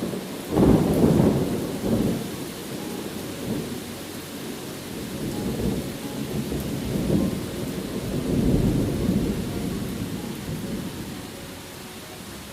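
Thunder rolling over steady rain: a sudden loud rumble about half a second in, then slower rumbles that swell again around the middle and die away near the end.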